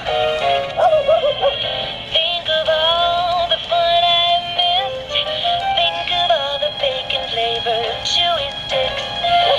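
Gemmy animated Christmas plush puppy playing its recorded song, a singing voice over music, through its small built-in speaker. The sound is thin and tinny, with no bass.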